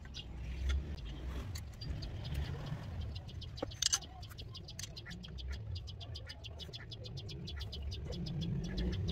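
A low steady rumble with a rapid, even high ticking, several ticks a second, from about a second and a half in until near the end. About four seconds in comes a light knock as the aluminium extrusion profile is set onto the frame.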